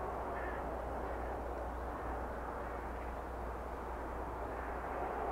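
Steady outdoor background noise: a low rumble with a duller hiss over it, unchanging throughout.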